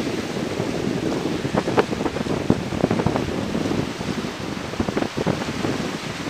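Surf washing onto a flat sandy beach, with wind buffeting the microphone and many short sharp crackles through it.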